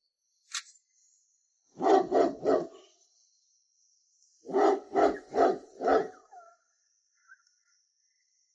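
Dog barking in two short runs: three quick barks, then four more about two seconds later. A single short sharp click comes just before.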